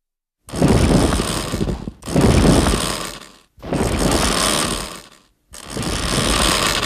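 Destoroyah kaiju sound effect: four loud, rough, rasping bursts in a row, each about a second and a half long, starting about half a second in.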